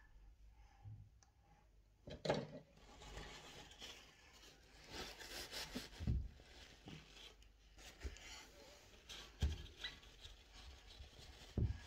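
Faint rubbing and scraping handling noises, with a few dull knocks: about two seconds in, about six seconds in, about nine and a half seconds in and near the end.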